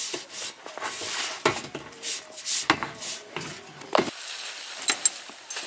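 A run of irregular scrapes, crunches and knocks from camping gear being handled, with a few sharp clicks near the end.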